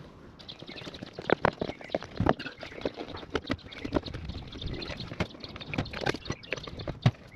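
A hand-operated motorcycle tyre bead breaker being worked to break the bead on the second side of a Hayabusa wheel: an irregular run of sharp clicks and knocks, loudest about a second in and again near the end.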